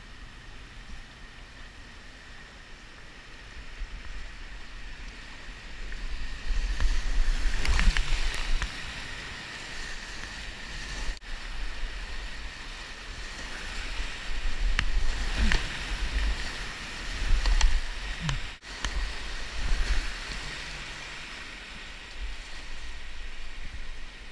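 Whitewater rapids rushing and splashing around a kayak as it runs a boulder-strewn rapid, swelling in louder surges with a few brief knocks. The sound breaks off for an instant twice.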